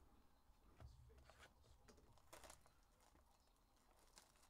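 Near silence with a few faint rustles and taps, from trading-card packs and cards being handled and opened.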